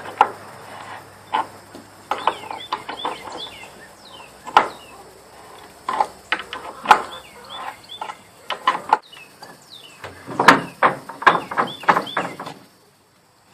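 Wrench turning the nut on a gate's threaded hinge pin: irregular metal clicks and knocks, with birds chirping behind. The sound cuts off suddenly near the end.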